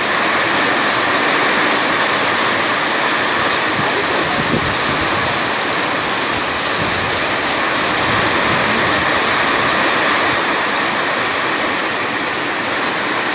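Heavy rain pouring onto a flooded paved street, a loud, steady hiss of water. A vehicle passes through the wet road partway through.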